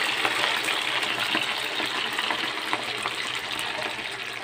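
Thin slices of unripe banana deep-frying in hot oil in a wok: a steady sizzle with small crackles that slowly dies down as the freshly added slices cook.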